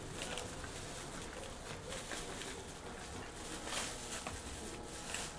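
Cabin ambience of a Tokyu 8500 series train standing at a station: a low steady hum with scattered light knocks and footsteps.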